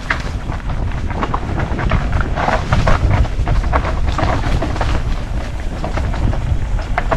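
Mountain bike riding down a steep dirt trail: heavy wind buffeting on the microphone, with the tyres skidding and crunching over the ground in irregular scrapes and crackles.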